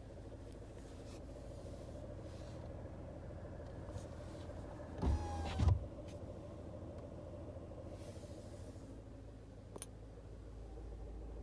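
A 2019 Kia Forte's 2.0 Nu inline-four engine running steadily at idle. A brief louder sound with a falling pitch comes about five seconds in, and a single sharp click near ten seconds.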